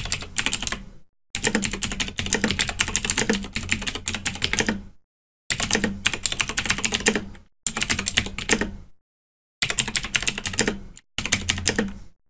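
Computer keyboard typing sound effect: rapid key clicks in about six runs split by short pauses, played to go with text being typed out on screen.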